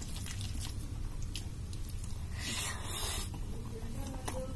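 Wet squishing of rice and dal being mixed by hand on a plate, with small scattered clicks and one louder squelch lasting about a second a little past halfway.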